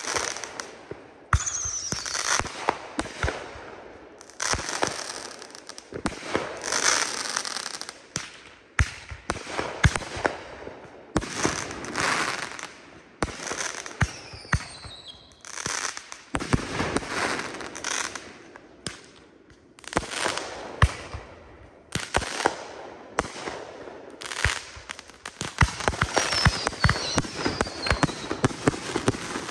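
Consumer 1.4G fireworks firing in rapid, irregular succession: repeated launch thumps and aerial bursts, with a few falling whistles.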